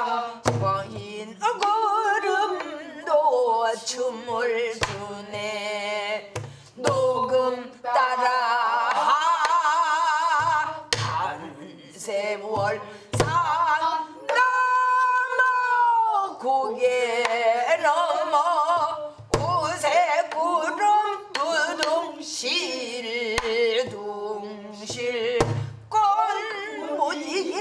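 A woman singing a Korean folk-style song in a wavering, ornamented voice, with one long held note about halfway through, while accompanying herself on a buk barrel drum. The drumstick falls irregularly, giving low thumps on the drumhead and sharp clicks on the wooden rim.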